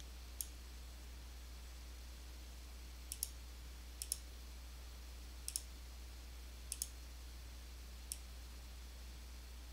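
Computer mouse clicking: one click, then four quick pairs of clicks a second or so apart, then one last click. A faint steady low hum sits underneath.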